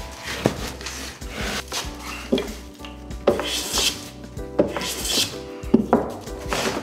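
Hand plane shaving the edge of a wooden board in a series of scraping strokes, about one a second.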